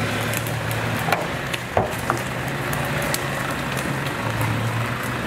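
Off-road vehicle's engine running at steady low revs, with scattered sharp clicks and cracks over it, the loudest about a second and two seconds in.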